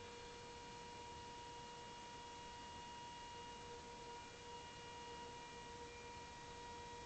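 Faint, steady hum of two held tones, one about an octave above the other, over a soft hiss: the unexplained droning 'sky sound' that seems to come from everywhere at once rather than from any one direction.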